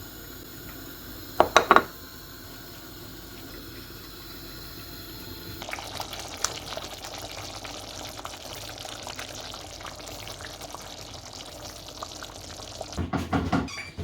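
A steady hiss of water that grows louder about six seconds in. Three quick sharp clinks come about a second and a half in, and a few heavier knocks near the end.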